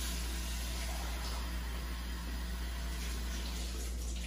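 Kitchen tap running into a sink, a steady rush of water.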